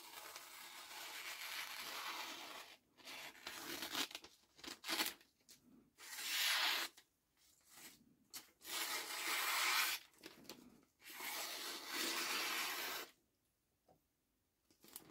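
A knife blade slicing through a sheet of printed paper in several long strokes with pauses between them, testing the sharpness of the freshly sharpened edge. A single sharp click comes at the very end.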